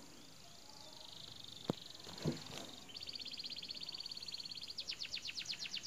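A bird trilling faintly: a fast run of high, evenly spaced chirps starts about three seconds in, then grows louder and slower near the end. A single sharp click and a soft knock come before the trill.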